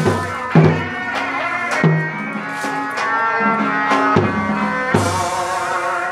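Vietnamese hát bội (tuồng) theatre ensemble playing: pitched drum strokes, several near the start and a couple more later, under a sustained melody line.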